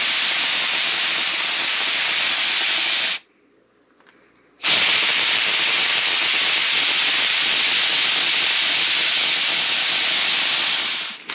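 Handheld steamer hissing steadily as it blows steam through a narrow nozzle onto crushed EPO foam, heating the foam so it expands back out of its dents. The hiss stops for about a second and a half about three seconds in, then resumes and stops near the end.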